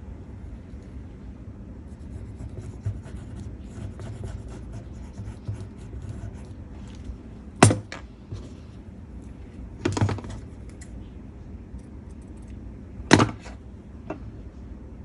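Scissors snipping hem tape lace, three sharp cuts in the second half, over light scratching and rustling of the lace and paper being handled.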